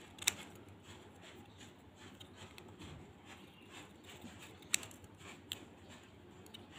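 Small scissors snipping thin paper, quiet cuts with a few sharper clicks of the blades: one just after the start and two more about five seconds in.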